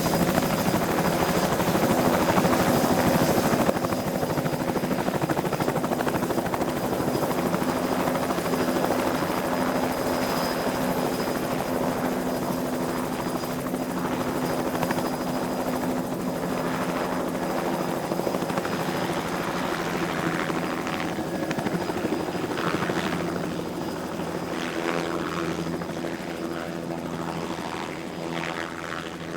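Helicopter running steadily, with a fast rotor beat over a steady engine hum and a high whine. It dips slightly about four seconds in and slowly fades toward the end.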